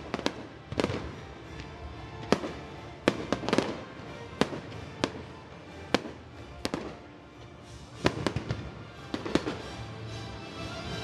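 Fireworks shells bursting: a dozen or so sharp bangs at irregular intervals, each with a short echoing tail, over background music.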